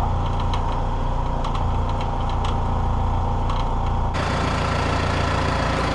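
New Holland compact tractor's diesel engine running steadily at low speed, with a few light clicks over it.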